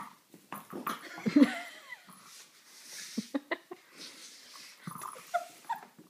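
A young dog at play with a ball, giving short vocal sounds that bend in pitch, loudest about a second and a half in, with smaller ones near the end. Scattered clicks and knocks come in between.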